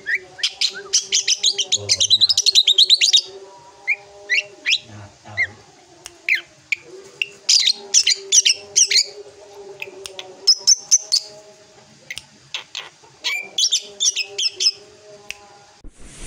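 Young drongo calling in bursts of sharp, high chattering notes and fast trills, with short pauses between the bursts.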